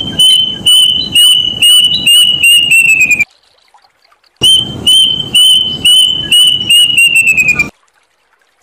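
Plaintive cuckoo singing: two loud runs of about a dozen clear whistled notes each, the notes coming faster and falling slightly in pitch toward the end of each run, with a pause of about a second between them.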